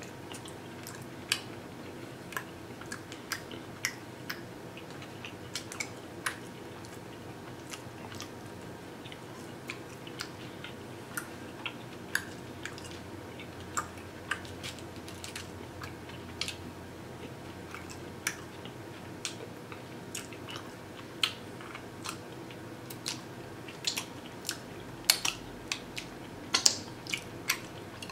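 Close-miked chewing and wet mouth clicks of a man eating saucy barbecue ribs and sucking sauce off his fingers. The clicks are scattered and grow thicker near the end, over a faint steady hum.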